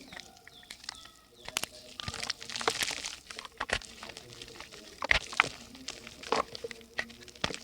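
Dry yellow mud in a clay pot crumbling and crackling as it soaks up water: irregular sharp clicks and crackles, with a denser hissing fizz about two to three seconds in.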